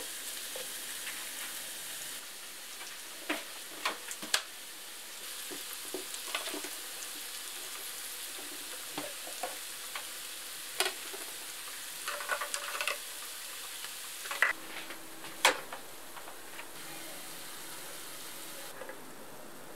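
Cooked food sizzling gently in the compartments of a Hauswirt multi-compartment electric pot, a steady hiss with scattered sharp clicks of utensils and containers. The sizzle grows quieter near the end.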